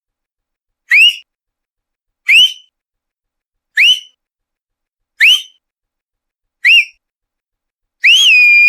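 A person whistling with the mouth in short, insistent upward-sliding whistles, about one every second and a half. The last whistle is longer: it rises, holds its pitch, then rises again.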